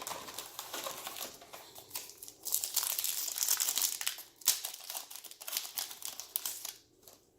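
Trading cards being handled and slid through the hands, a dry crinkling rustle that is densest about two and a half to four and a half seconds in and stops shortly before the end.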